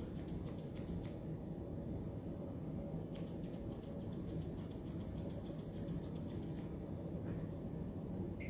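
Curved dog-grooming shears snipping the fur on a Maltipoo's face: quick runs of crisp snips in the first second and again from about three to seven seconds in, with a pause between and a few single snips near the end.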